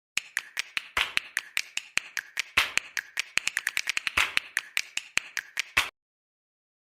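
A fast, even run of sharp clicks, about five a second, with a heavier knock every eighth click, stopping suddenly about six seconds in.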